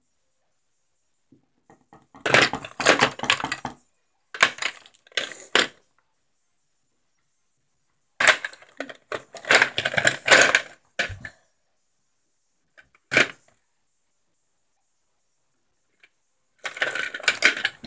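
Hard small objects rattling and clattering in several separate bursts, like pencils and brushes being handled in a plastic bowl.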